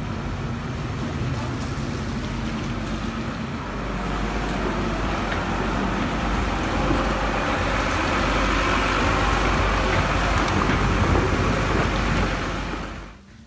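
Steady street traffic noise from motor vehicles, such as motorbikes. It grows louder through the second half and cuts off sharply near the end.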